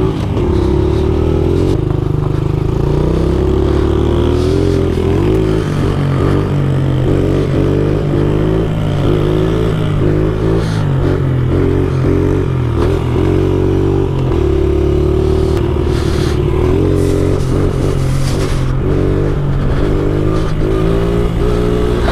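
Small single-cylinder 70cc pit bike engine running under way, loud and close, its revs climbing in short repeated rises and dropping back as the rider works the throttle and shifts gears.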